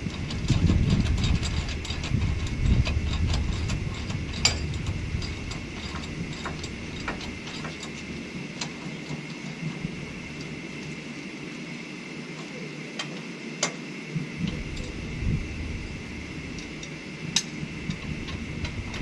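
Hand tools working on a truck's front brake and hub assembly: scattered sharp metallic clicks and light knocks, with ratchet clicking, as the parts are put back together.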